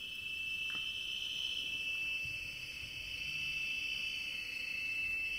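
Crickets trilling in one steady, unbroken high tone.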